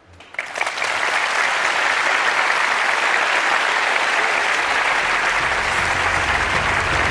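Large auditorium audience applauding, swelling up within the first second and then holding steady and loud. Low music comes in faintly underneath about five seconds in.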